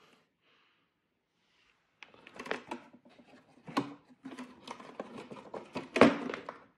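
Wooden lid of a Hammargrens Power Box firework crate being handled and fitted back on: a run of light wooden knocks and scrapes starting about two seconds in, with a sharper knock near the end.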